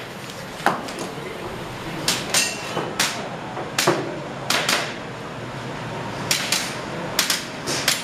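Airsoft pistol firing: a dozen or so sharp clacks, mostly in quick pairs about a third of a second apart, with a short pause about a second in and again around five seconds in.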